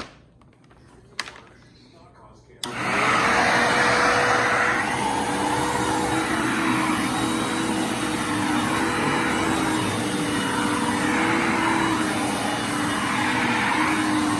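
A Bissell Lift-Off Multi Cyclonic Pet upright vacuum switching on about two and a half seconds in. Its motor spins up to a steady whine and runs on loudly, swelling and easing a little every couple of seconds. There is a single click about a second in, before it starts.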